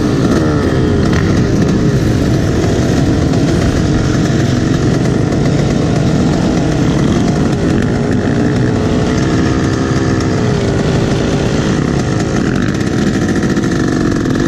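Two-stroke Yamaha dirt bike engine running under the rider, its pitch rising and falling as the throttle is blipped, with other motocross bikes running close by.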